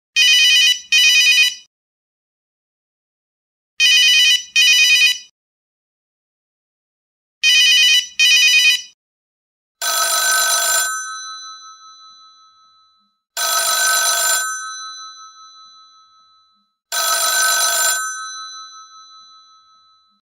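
Two different telephone ringtones, one after the other. First, a bright trilling ring in a double-ring pattern, two short rings then a pause, three times over. Then, from about ten seconds in, a telephone bell rings three times, each ring lasting about a second and then ringing on and fading away.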